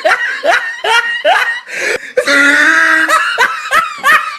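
Laughter: a run of quick, falling "ha" sounds about two or three a second, broken by a longer held sound about halfway through, then more quick "ha" sounds.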